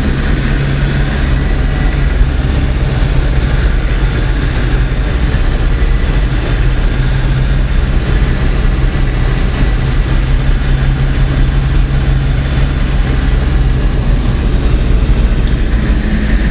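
Car engine running steadily with road and wind noise while driving along.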